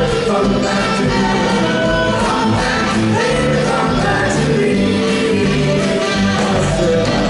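Doo-wop vocal group singing live, several voices holding sustained harmony notes over instrumental accompaniment.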